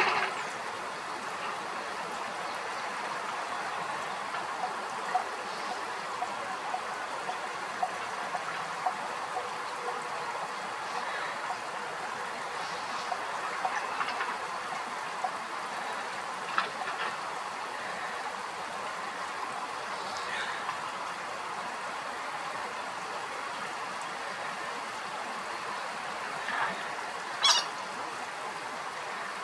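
Short duck calls scattered over a steady background hiss. The loudest are a brief sharp call right at the start and another near the end.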